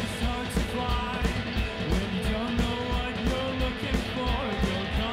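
A live indie rock band playing: electric guitars over a steady drum beat.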